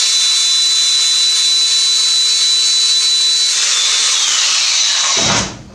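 Angle grinder with a flap disc running and grinding a piece of high-temperature plastic: a steady high whine over a harsh rasp. About four seconds in the whine begins to drop, and the grinder stops shortly before the end.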